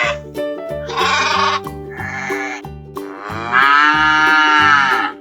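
Upbeat background music with a steady beat, over sheep or goat bleats added as sound effects. The longest bleat comes about three and a half seconds in and lasts over a second, rising and then falling in pitch.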